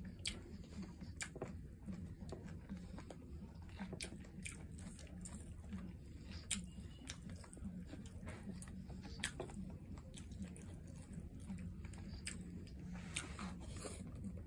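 Close-miked chewing of a mouthful of rice and tomato stew, about two chews a second, with scattered sharp mouth clicks.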